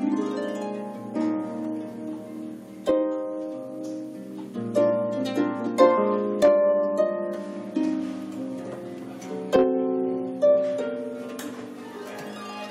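Concert harp played solo: plucked notes and chords that ring on and overlap, with a few sharply plucked accents.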